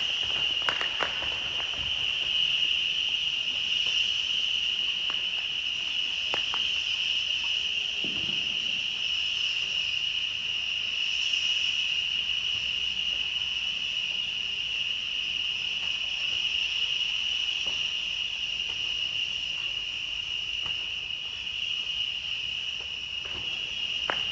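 Continuous high insect trill, held steady and unbroken, with a few faint sharp pops in the first second and once more about six seconds in.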